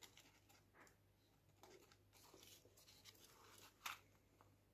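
Faint handling of a Wolf Blake leather watch roll: soft scuffs and rustles as the suede watch pillow is pushed into the roll, with one sharper tap near the end.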